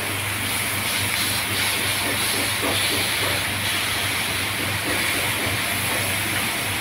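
Beef rib pieces sizzling steadily on a hot ridged grill pan, over a steady low hum.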